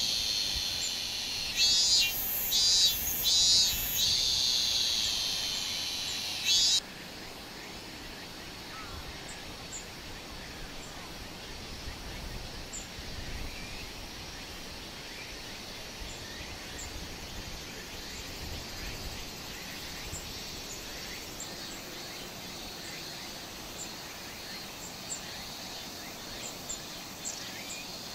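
Outdoor ambience: a loud, high-pitched insect buzz that surges about once a second, cutting off suddenly about seven seconds in. After that comes a quieter steady background with faint, brief high chirps.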